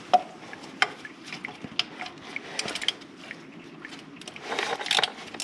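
Hand tool working loose the 10 mm bolts of an engine's thermostat housing: scattered sharp clicks and ticks. A quick run of several clicks comes about two and a half seconds in, and a noisier stretch of handling sound comes near the end.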